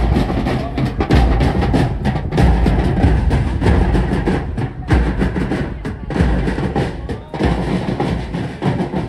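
Marching band drums: snare drums playing rapid strokes over heavier bass drum beats that come every second or so.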